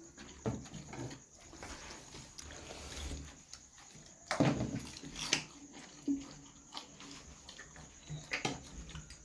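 A person eating biryani close to the microphone: scattered wet chewing and mouth smacks, with the loudest smacks about four and five seconds in.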